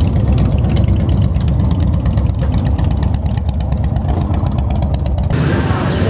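Motorcycle engine running close by at low speed, a deep rumble of rapid firing pulses; it cuts off abruptly about five seconds in, giving way to quieter street sounds.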